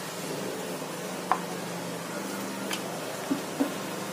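Wooden rolling pin rolling out gram-flour dough on a wooden board, with a few light knocks of the pin on the board, over a steady low hum.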